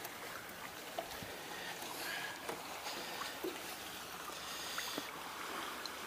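Water lapping and splashing against the hull of a small fishing boat rocking in a wake, with a few light knocks.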